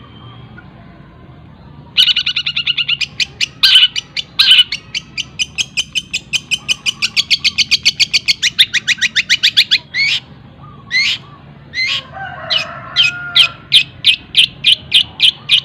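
Long-tailed shrike (cendet) singing a fast, dense song built from other birds' calls: long runs of sharp, high repeated notes at about seven or eight a second, broken by a few separate calls, then another rapid run near the end.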